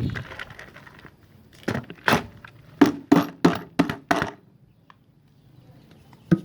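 A quick run of about seven sharp knocks, roughly three a second, each with a short ring, followed after a pause by a single knock near the end.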